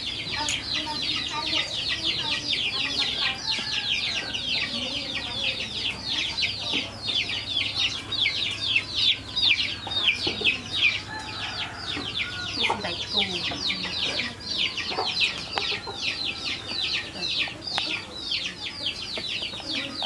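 A flock of chicks peeping: a dense, continuous chorus of many short, high, falling chirps.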